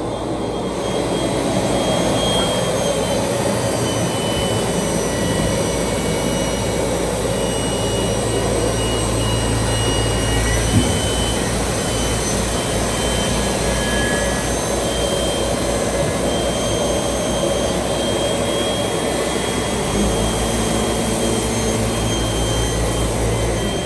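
ROBA Fentech profile sanding machine running as it sands narrow wooden window profiles: steady machine noise with a low hum and high whining tones that come and go.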